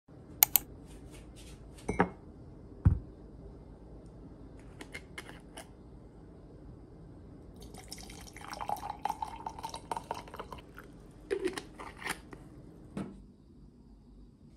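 Cold omija tea poured from a plastic bottle into a glass mug, a splashing pour of about two seconds from eight seconds in with a faintly rising note. Scattered knocks and clicks of the bottle and glass being handled come before it, and more clicks and a dull thud of the mug set down come near the end.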